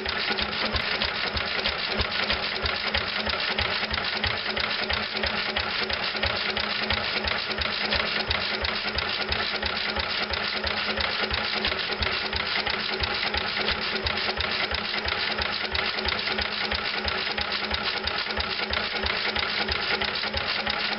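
International Harvester (McCormick-Deering) Model M 1½ hp spark-plug flywheel engine running steadily on its throttle governor, not hit-and-miss, with an even, regular firing beat.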